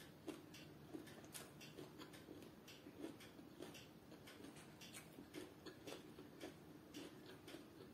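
Near silence with faint, irregular small clicks: mouth sounds of chewing and fingers handling rice and food.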